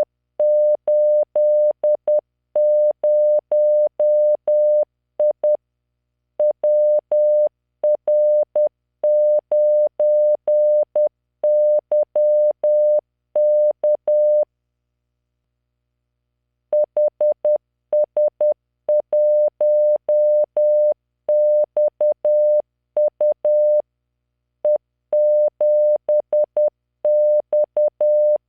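Computer-generated Morse code: a 600 Hz tone keyed in dots and dashes at 10 words per minute, sending random five-character practice groups, with a pause of about two seconds near the middle.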